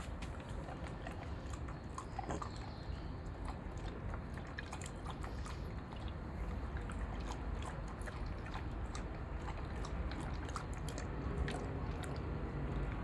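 A German shepherd dog chewing and eating, with many short, irregular clicks.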